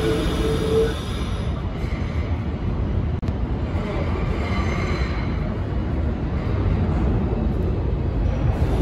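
New York City subway train rumbling through the tunnel as it approaches the station, growing slowly louder toward the end, with faint wheel squeal. A brief steady tone sounds at the start and stops just under a second in.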